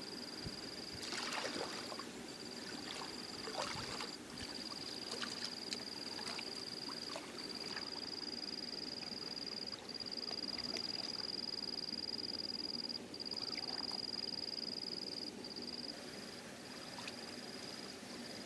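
Water splashing and sloshing in a few short bursts, over a steady high-pitched whine that drops out briefly now and then.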